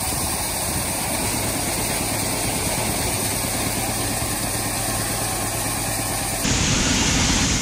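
John Deere B tractor's two-cylinder engine running steadily while a grain auger carries corn up into a semi trailer. About six and a half seconds in the sound becomes louder and hissier.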